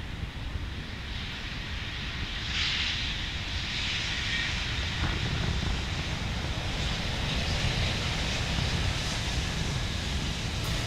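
Diesel-hauled train passing at a distance: a steady low engine rumble with hiss over it, growing a little louder about two and a half seconds in.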